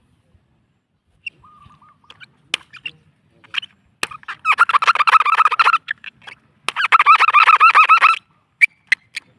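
Two runs of rapid, repeated bird-like calls, each about a second and a half long, with a few sharp clicks and short chirps before and between them.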